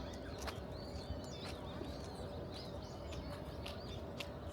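Small birds chirping repeatedly in short, quick calls over a steady faint hum and low outdoor background noise.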